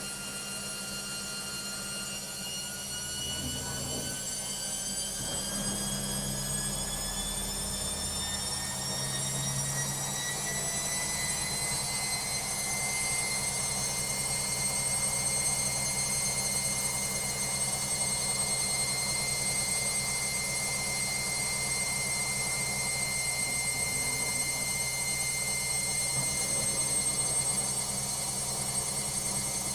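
Washing machine spinning up: the motor and drum whine rises steadily in pitch for about the first ten seconds, then holds level at full spin speed.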